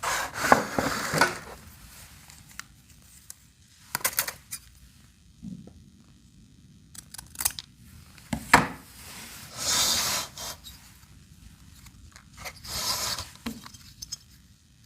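Small metal tools and parts clinking and scraping during hand work on a scooter engine, in several short spells with quiet between.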